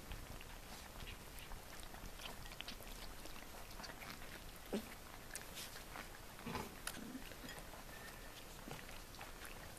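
Four-week-old collie puppies eating soft meat from a plate: faint wet smacking and chewing clicks throughout, with a soft knock a little before the middle and a few more about two-thirds of the way through.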